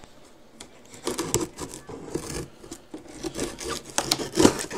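Utility knife cutting through the packing tape and cardboard of a shipping box: a run of uneven scraping strokes starting about a second in, the last one loudest.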